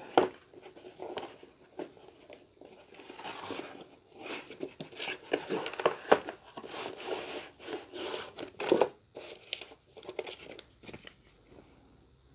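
Set-top box's cardboard carton being handled and opened by hand: irregular rustling and scraping of cardboard and paper, with several sharp snaps and knocks.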